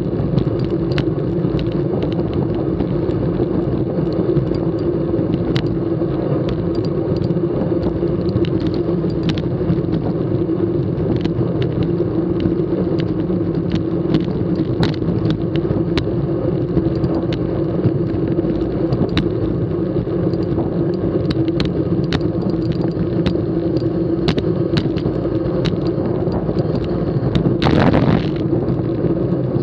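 Road racing bicycles rolling at speed, heard from a camera on one of the bikes: steady tyre and wind rumble with a constant hum, scattered small clicks and knocks from the bike and road, and a brief louder rush near the end.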